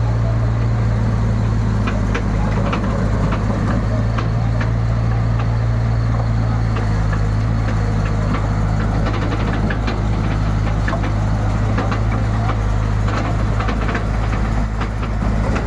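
Backhoe's engine running steadily, with irregular knocks and clatter of wood pieces being loaded into the truck.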